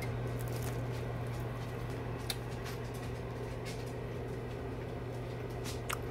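A few faint crisp clicks of a crispy-crusted soft pretzel being bitten and chewed, over a steady low hum.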